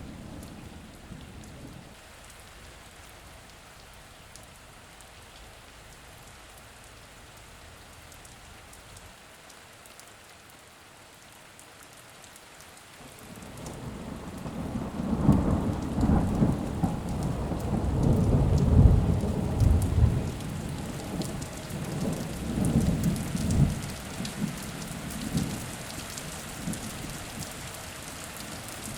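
Steady rain falling, with a long roll of thunder building about halfway through, rumbling loudest for several seconds, then fading out in smaller rolls.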